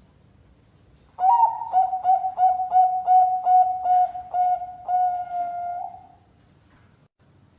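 Bangkok perkutut (zebra dove) singing one phrase of its song, starting about a second in. It is a quick run of short, clear coos, about three a second, ending in a longer drawn-out note.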